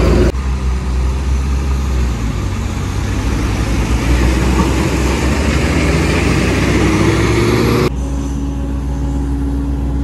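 Heavy diesel engines running hard as a Tata tipper truck stuck in soft fly ash is worked free, with an excavator's bucket at its tail pushing it. The engine pitch climbs near the end of this stretch, then about eight seconds in the sound changes abruptly to a steadier engine hum.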